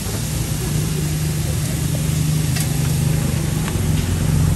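An engine running steadily with a low, even hum, over street background noise.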